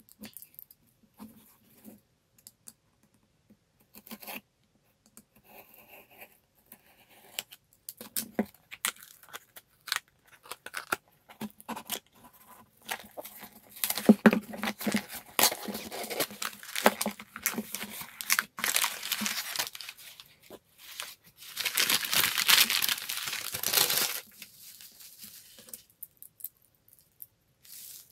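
A cardboard shipping box being opened by hand. Scattered small clicks and scrapes come first, then a stretch of tearing and crinkling of cardboard and packing material, loudest and most continuous near the end.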